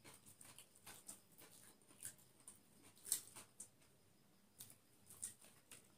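Faint, scattered eating sounds of people eating biryani by hand: small mouth clicks and smacks of chewing, the loudest about three seconds in.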